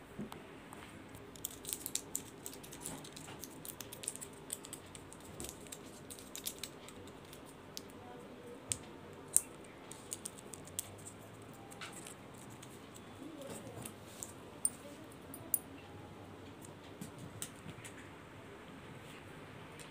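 A kitten playing on a bedsheet: light, irregular clicks and rustles, bunched in the first several seconds and sparser later, over faint steady room noise.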